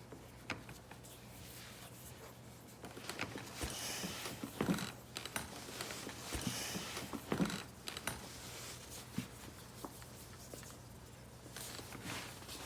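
Scattered light clicks, taps and rustling of small objects being handled, over a steady low electrical hum.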